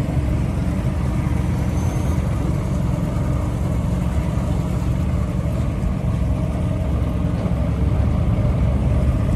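Speedboat engine running steadily under way, a constant low drone with a rushing hiss of water and wind over it.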